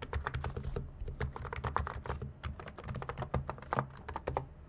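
Typing on a Hansung GK896B capacitive keyboard with light 35 g switches and PBT keycaps: a fast, continuous run of keystrokes, several a second.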